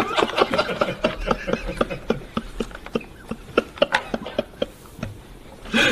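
Men laughing in a quick run of short, breathy bursts, trailing off near the end.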